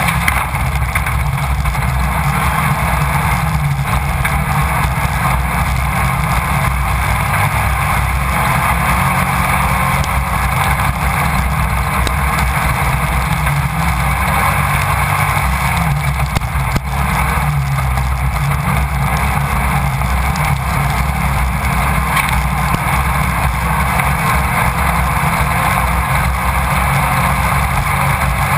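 Class 1600 off-road race car's air-cooled VW engine running hard under racing, heard from a camera mounted inside the car. The noise is steady and loud, dipping briefly about seventeen seconds in.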